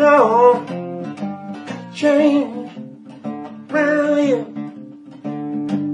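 Acoustic lap slide guitar played with a bar, laid flat on the lap: three sliding melody phrases that bend downward, over a repeating plucked bass figure.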